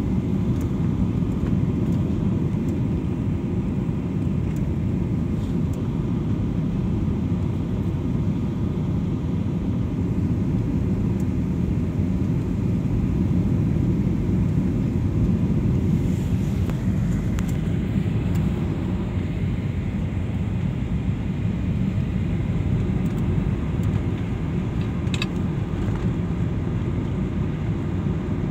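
Steady cabin noise of a jet airliner descending on approach with its flaps extended: a low, even rumble of engines and airflow heard from a window seat over the wing.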